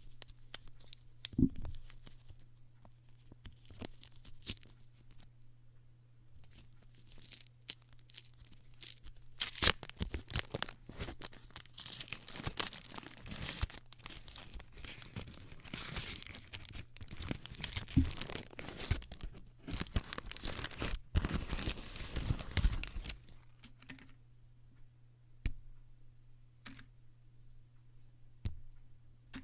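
A chocolate bar's wrapper being torn open and crinkled: scattered crackles at first, then a long stretch of dense tearing and crinkling from about ten seconds in until about twenty-three seconds, then a few scattered clicks.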